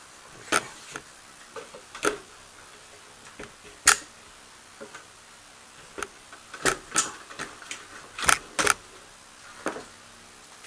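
Irregular clicks and knocks of metal electrode-plate cells on threaded rods being set into the compartments of a plastic box, metal tapping against plastic. The loudest knocks come about four seconds in and just past eight seconds.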